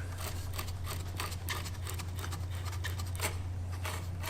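Scattered small clicks and taps of hands handling a Work Sharp Ken Onion Edition belt sharpener as its sanding belt is set in place, over a steady low hum.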